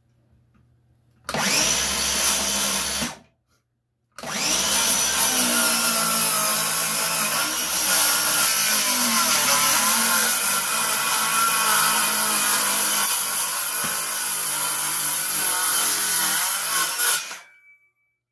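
Circular saw set to cut about an inch deep, plunge-cutting through a 3/4-inch subfloor: a short burst of about two seconds, then a long cut of about thirteen seconds. The motor pitch sags and wavers under load partway through, and the saw stops near the end.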